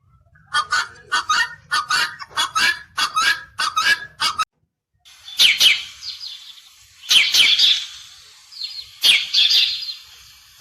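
Birds calling: a quick series of about a dozen short calls, then after a brief break three bursts of high chirping.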